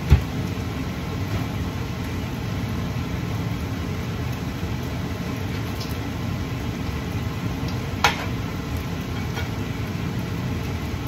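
Steady low hum of a kitchen range-hood exhaust fan running over the stove. Two sharp clinks of kitchenware cut through it, a loud one at the start and another about eight seconds in.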